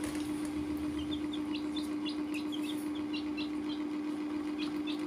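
Baby chicks peeping in many short, high chirps from about a second in, over a steady hum that is the loudest sound throughout.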